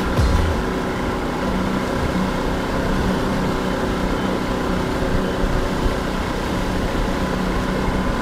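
Outboard motor running steadily at trolling speed, with wind and the rushing of the boat's wake. A thin, steady beep runs under it from a faulty low-oil alarm.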